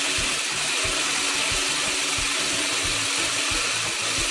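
Electric stick blender with a whisk attachment running steadily, whisking raw eggs in a plastic bowl.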